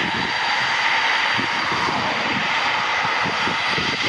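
Eurofighter Typhoon's twin EJ200 turbofan jet engines running at taxi power: a steady, loud jet whine over a rushing hiss.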